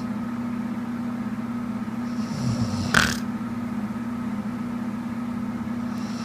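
A sleeping woman snoring: a rasping in-breath about two seconds in ends in a short, sharp snort about three seconds in, and another snort comes right at the end. A steady low hum runs underneath.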